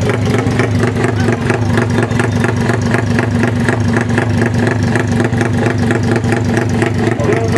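Drag-race motorcycle engine running steadily, with a rapid, even pulsing beat.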